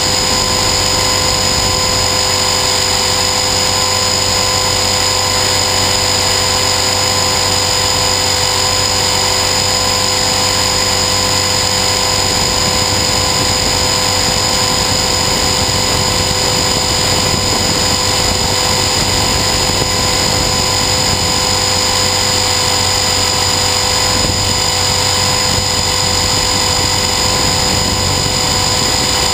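Align T-Rex 450 Sport electric RC helicopter heard from its onboard camera: a steady whine from the motor and drive gears over the rotor noise, holding an even pitch and level throughout.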